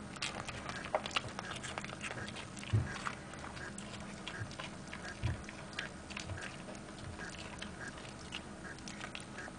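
A small dog chewing and crunching pieces of pepper: a run of irregular, crisp little crunches and mouth clicks, with a couple of soft low thumps about three and five seconds in.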